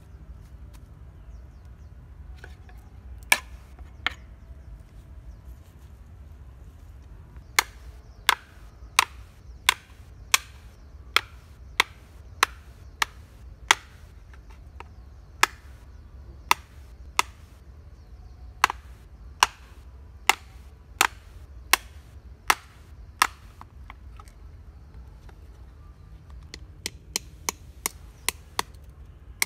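Sharp knocks of a hand-held stone striking a flat piece of material laid on a boulder, as it is chipped into shape. There are two single knocks early on, then a steady run of about one and a half knocks a second, a pause, and a quicker, softer series of taps near the end.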